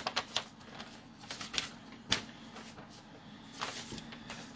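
Quiet handling of packaging: soft rustling with a few small, sharp clicks, the loudest about two seconds in.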